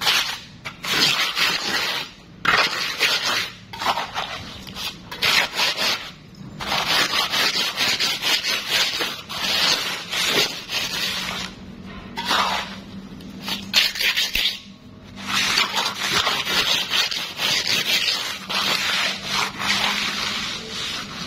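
Hand float and small trowel scraping and rubbing across wet, freshly poured concrete in repeated strokes with short pauses, as the floor surface is smoothed and levelled.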